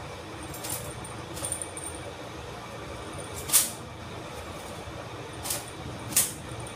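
Five brief swishes of long wet hair being flicked and shaken out to dry, the loudest about three and a half seconds in, over a steady background hiss.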